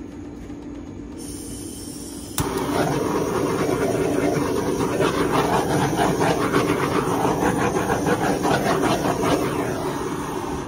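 Handheld butane torch. A soft gas hiss starts about a second in, the igniter clicks, and the flame runs with a loud, crackly rushing hiss that cuts off just before the end.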